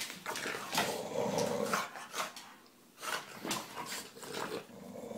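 English Bulldog puppy growling in play as she bites and tugs at socked feet, in two bouts with a short pause about halfway.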